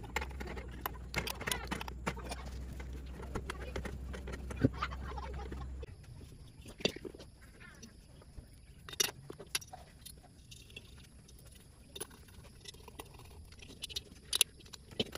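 Hand tools clicking and clinking against metal engine parts during a Lambretta engine rebuild. There are many small metallic clicks over a steady low hum for about the first six seconds. It then drops quieter, with scattered single clicks and taps of a spanner on the cylinder and intake manifold.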